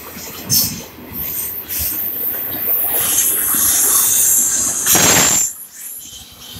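Intermodal freight train cars rolling past at close range: a steady rush of steel wheels on the rails, with short high-pitched wheel squeals. It surges louder about five seconds in, then dips briefly.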